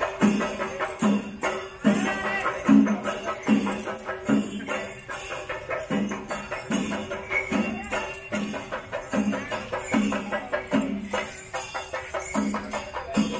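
Music with a steady rhythm: a low beat about every three-quarters of a second under fast jingling percussion.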